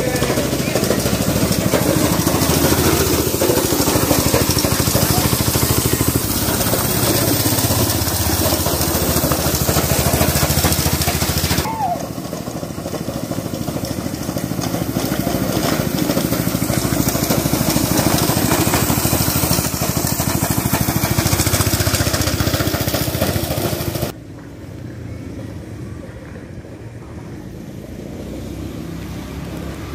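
Small motorcycle engine of a homemade mini buggy running as the buggy drives along, with a steady engine drone throughout. The sound drops suddenly in level twice, about twelve and twenty-four seconds in.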